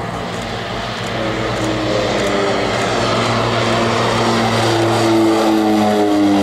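North American Rockwell OV-10B Bronco's twin turboprop engines running at power as the aircraft flies low past, growing louder, with the propeller tone dipping slightly in pitch near the end as it goes by.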